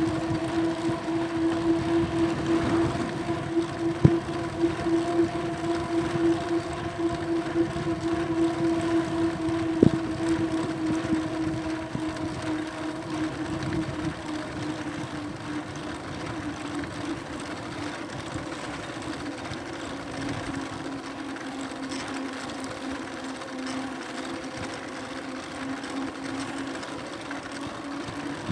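Aostirmotor S17 e-bike's electric hub motor whining steadily while riding, over a rushing noise. The whine drops a little in pitch past the middle, and two sharp knocks come through about four and ten seconds in.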